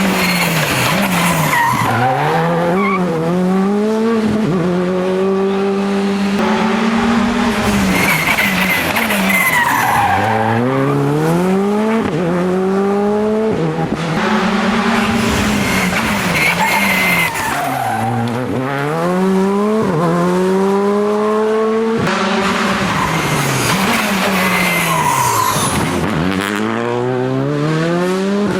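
Rally cars racing on a special stage, their engines revving hard, rising in pitch through the gears and dropping back again and again as they brake and shift for corners.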